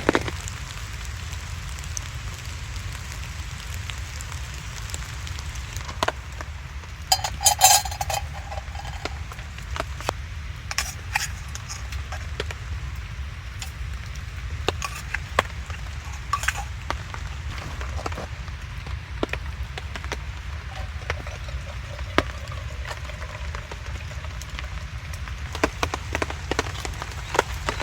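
Camp coffee-making sounds: scattered light clicks and knocks of camp cookware over a steady low rumble, with one ringing metal clink about seven seconds in.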